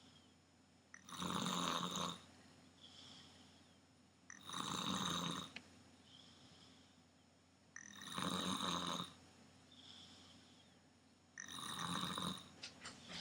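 Snoring: four loud snores about three and a half seconds apart, each followed by a fainter breath. A few sharp clicks come near the end.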